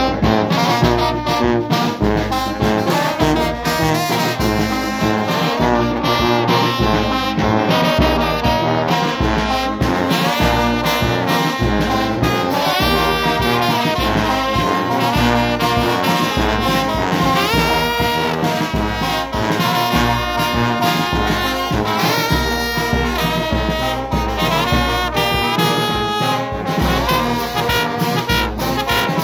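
A brass band playing a tune with a row of trombones prominent, over a steady low beat.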